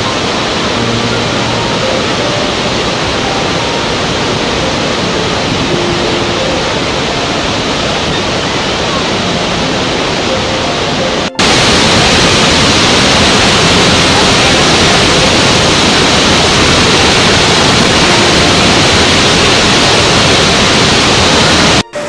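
Steady rushing noise of a large waterfall, with faint background music beneath it. About eleven seconds in it cuts abruptly to a louder, brighter rush of falling water.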